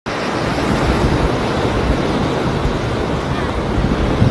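Wind buffeting a microphone on a beach: a loud, steady rushing rumble, gustier in the lows.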